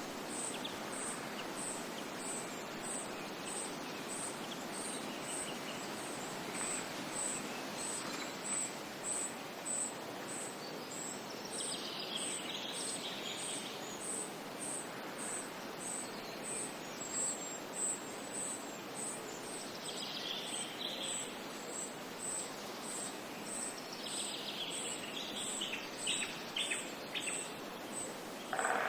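Nature ambience: birds chirping in short bursts over a steady hiss, with a faint high-pitched chirp repeating a little faster than once a second throughout.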